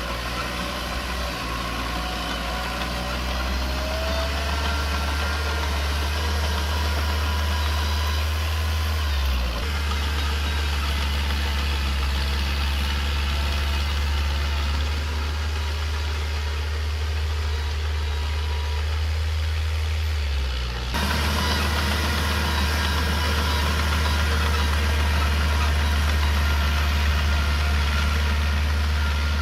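Small Komatsu bulldozer's diesel engine running steadily, with a deep, even drone that changes abruptly in pitch and tone twice.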